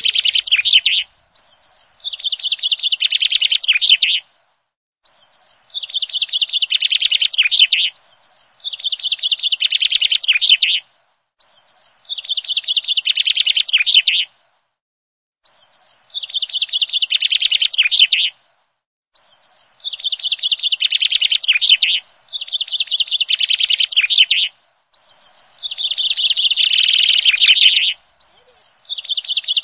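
Bird song: a rapid chirping trill that swells in loudness over about three seconds, repeated in near-identical phrases with short gaps between them, about nine times.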